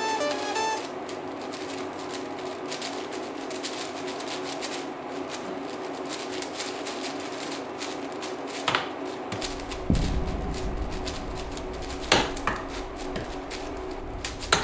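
QiYi WuJi 7x7 speed cube being turned fast, a dense run of plastic clicks and clacks as its layers are spun. A few sharper, louder knocks come in the second half, near the end of the solves.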